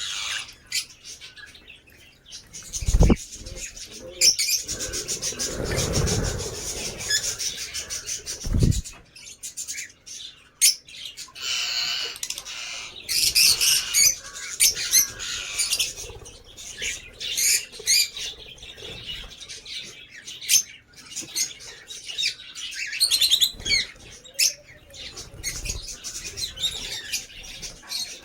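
Lovebirds chirping, with many short, sharp high calls overlapping throughout. Two loud low thumps come about three and nine seconds in.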